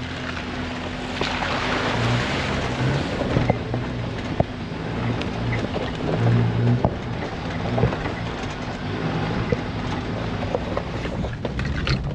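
Suzuki Jimny's engine working under load as the 4x4 crawls up a rough off-road track, its note rising and falling with the throttle, with scattered knocks and rattles from the body and suspension over the bumps.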